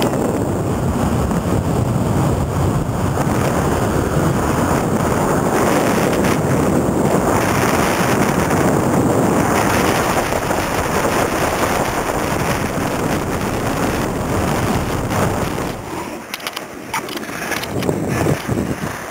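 Wind rushing over the microphone and skis hissing and scraping over packed snow during a downhill run. About sixteen seconds in the rush falls away, and a few sharp clicks follow.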